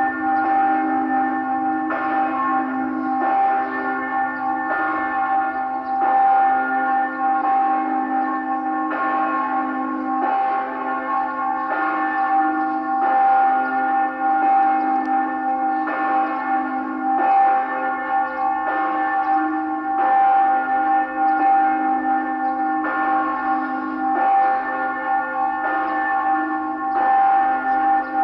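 Church bells ringing continuously, struck roughly once a second, each strike sounding over the ringing of the last.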